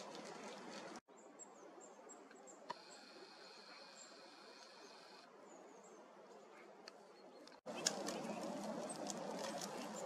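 Thin, high calls of small tits, a few short chirps in the first half and again around the seven-second mark, over faint background hiss. A steady high tone runs for about two seconds in the middle, and a louder hiss with a few sharp clicks begins about three-quarters of the way through.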